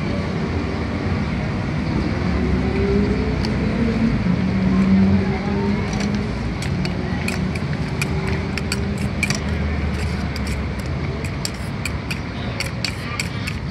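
Steady road-traffic rumble, with a passing engine gliding in pitch in the first few seconds. From about six seconds in, quick clinks and scrapes of a metal spoon against a stainless-steel bowl as a salad is tossed.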